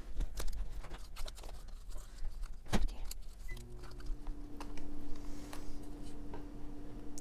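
Small clicks and taps of plant cuttings and small pots being handled on a glass tabletop, with one sharper knock just under three seconds in. About halfway through, a steady low hum comes in and keeps going.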